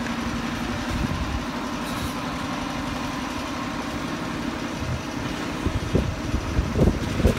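A machine running steadily, with a few short, low knocks near the end.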